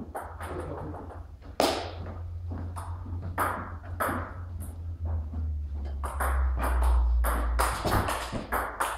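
Table tennis ball clicking off the table and the players' rubber bats. A few separate bounces come first, then from about six seconds in a quick rally of several hits a second.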